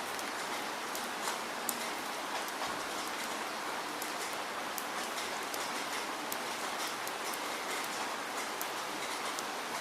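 Steady rainfall, an even hiss with many small drop ticks scattered through it.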